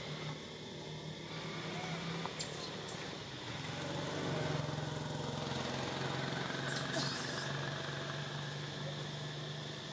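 A motor engine running steadily at a low hum, swelling about four seconds in. There are two brief clusters of sharp clicks, near three and seven seconds in.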